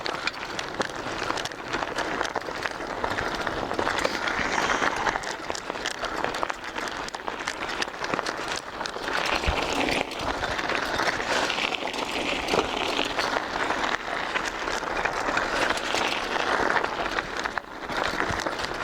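Bicycle tyres rolling over a bumpy dirt road: a steady crackling crunch with many small clicks.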